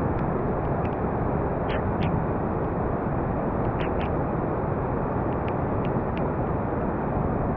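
Steady rushing of a fast, high river over rapids: an even, unbroken wash of water noise, with a few faint ticks scattered over it.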